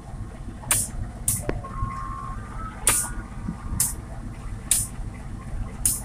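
CC 201 diesel-electric locomotive's engine running with a steady low rumble as it pulls slowly out with its train. Short high hissing bursts come about once a second over the rumble.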